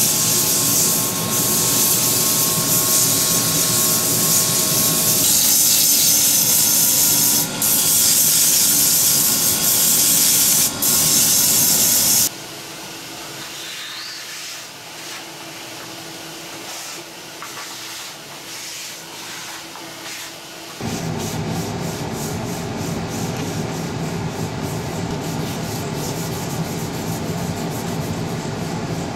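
Sandpaper hissing against a wooden flashlight body spinning on a Nova Comet II lathe, loud for about the first twelve seconds. Then the hiss drops away to the quieter hum of the lathe. About two thirds of the way in, a softer steady rubbing noise starts up again.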